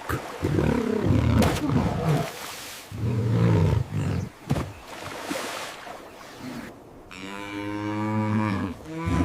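Low-pitched animal calls: a run of short calls in the first four seconds, then one long, drawn-out call starting about seven seconds in.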